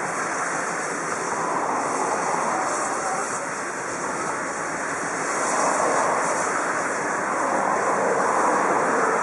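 Steady rushing hiss of steam from the DR Class 18 201 steam locomotive as it is turned on the turntable, swelling a little twice.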